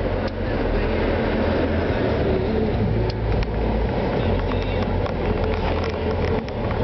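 Car driving along the road: steady engine and tyre rumble heard from inside the car.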